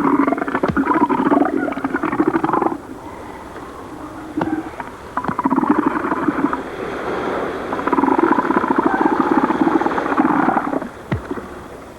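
Bull elephant seals giving their pulsed threat calls: three long calls, each a rapid train of throbbing pulses lasting a few seconds.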